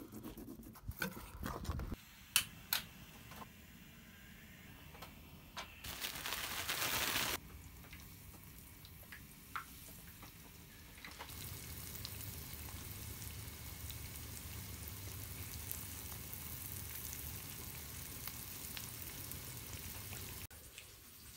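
Breaded northern pike fillets frying in oil in a pan on a camp stove: a steady sizzle from about eleven seconds in until just before the end. Before it, there are scattered knife clicks and knocks as the pike is cleaned, and a loud hiss lasting about a second and a half, around six seconds in.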